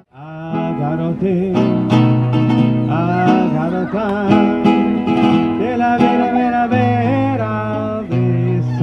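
Flamenco song: a wavering, ornamented vocal line over acoustic guitar. The sound drops out for a moment at the very start, then the music comes back in.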